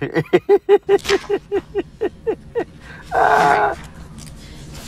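A person laughing: a quick, even run of short 'ha' sounds, each falling in pitch, then a loud breathy burst a little after three seconds.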